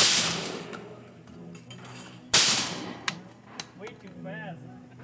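Shotgun fired twice at thrown clay targets, the shots about two and a half seconds apart, each with a long echoing decay, followed by a couple of light clicks.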